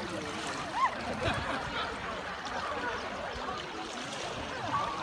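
Swimming pool ambience: water splashing and lapping, with the distant calls and chatter of swimmers scattered throughout.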